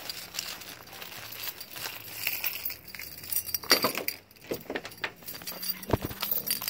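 A bunch of keys jangling and clinking, with a run of sharp clicks and knocks from about three and a half seconds in as a pickup truck's door is handled and opened.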